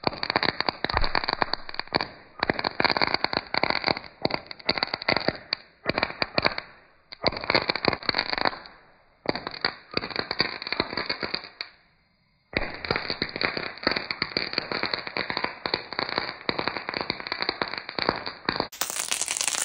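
Small crackling pyrotechnic sticks burning, giving off dense rapid crackling and popping in bursts of a second or two with short breaks between them. A brief high hiss comes near the end.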